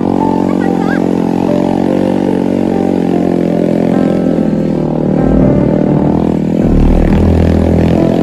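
Motorcycle engine running steadily under way on a gravel track, with the low rumble growing heavier about five seconds in.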